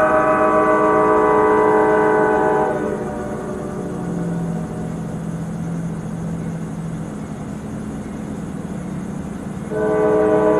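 Multi-chime air horn of a CSX freight locomotive, a GE AC4400CW, sounding at a grade crossing: a long blast that cuts off about two and a half seconds in, then the rumble of the approaching train, and the horn sounding again near the end.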